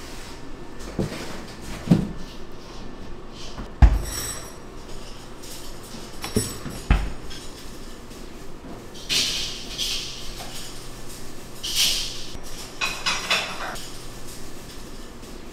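Restaurant kitchen prep: five dull knocks in the first seven seconds, then short bursts of scraping and clattering from utensils and dishes.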